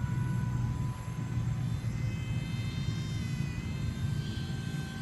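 A radio-controlled model plane's motor gives a thin, steady whine in flight, its pitch shifting slightly partway through as it moves about overhead, over a steady low rumble.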